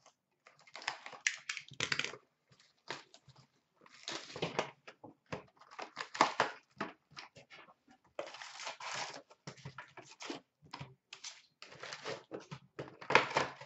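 Plastic shrink-wrap crinkling and tearing, with cardboard rustling, as a sealed hobby box of trading cards is unwrapped and its lid opened. It comes in irregular bursts with short pauses between them.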